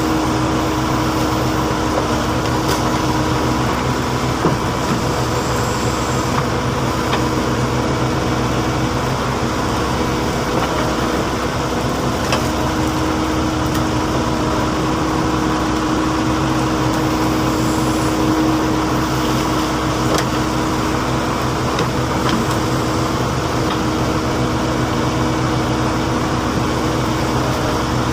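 Heavy diesel engine running steadily at an even speed, with a few faint knocks here and there.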